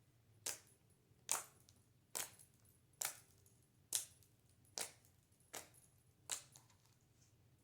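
Homemade clay slime being stirred with a stick in a bowl: a short sharp snap with each stroke, eight in a steady rhythm a little under a second apart, stopping near the end.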